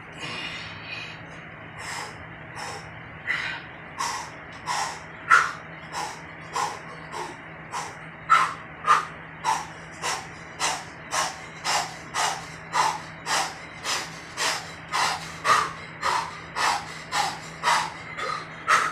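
A man's sharp breaths out through pursed lips, one with each rep of fast dumbbell lifts, in an even rhythm that quickens to nearly two breaths a second.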